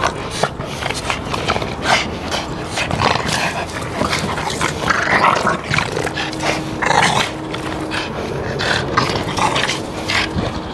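Play growling from a German shepherd and a Boston terrier as they tug a ball between them, low and continuous with rough, uneven scuffles.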